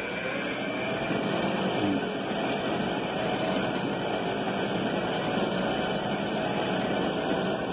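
Homemade motorised kite-line winder running steadily: a small electric motor drives the can spool through a belt, winding kite line onto the can with an even, unbroken mechanical noise.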